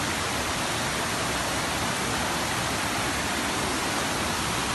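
Swollen, muddy floodwater rushing over rocks down a stream bed, a steady, even rush.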